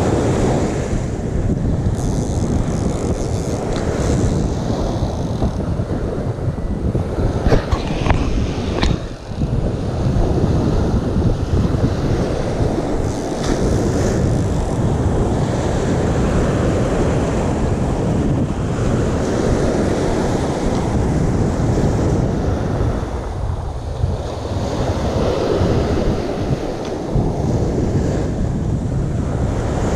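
Wind buffeting the microphone over the wash of small surf on a beach, with a few brief knocks or handling sounds around eight seconds in.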